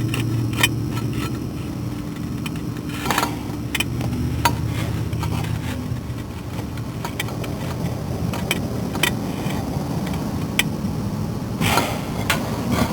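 Scattered metallic clinks and scrapes of hand tools and bolts as a car starter is worked into place from underneath, a sharp clink every second or so, over a steady low rumble.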